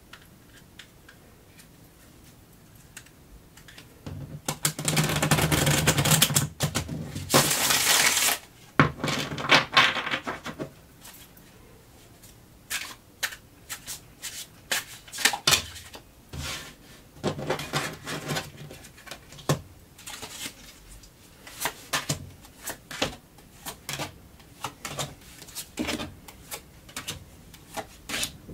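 A deck of tarot cards being shuffled by hand. About four seconds in come several seconds of dense riffling and rustling, then a long run of short, separate taps and snaps as the cards are handled and laid down on the table.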